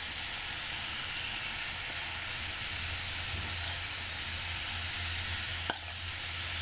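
Vegetables sizzling steadily in a pan of oil and paprika sauce over a gas flame, with a single clink of the metal spoon about five and a half seconds in.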